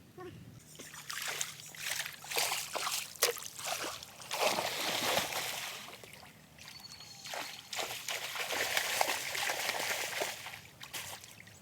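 Water splashing and sloshing in irregular bursts, in three spells with short lulls between them, as if something were being moved through shallow water.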